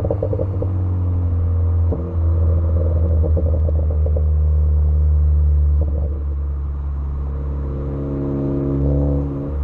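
Ford Focus ST engine running under a crackle tune, heard through intake and exhaust microphones at a fairly steady engine speed. The note steps up about two seconds in and eases back around six seconds, with brief crackly patches near the start and again near the end.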